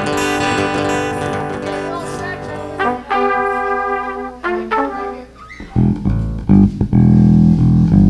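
Band instruments played loosely during a sound check: held notes for the first few seconds, a few shorter notes in the middle, then loud low bass notes from about six seconds in.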